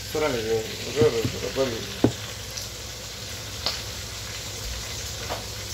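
Food sizzling in a pan on a gas stove, a steady frying hiss with a few faint ticks. A man's voice is heard briefly at the start, and there is a sharp knock about two seconds in.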